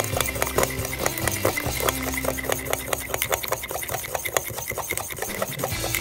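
Whisk beating a thick white mixture in a ceramic bowl: quick, even scraping and clinking strokes against the bowl, about five or six a second.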